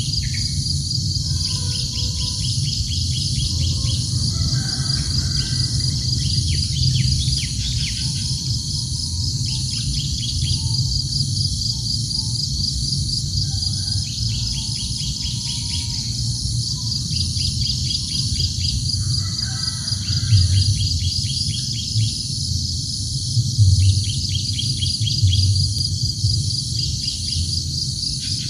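Steady high-pitched insect chorus with a fast pulsing trill, over a constant low rumble, with short bird chirps scattered throughout.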